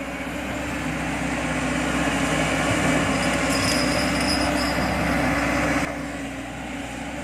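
Heavy diesel machinery engine running steadily during the chain tow of a stuck dump truck. It is loud until about six seconds in, then drops abruptly to a quieter running level.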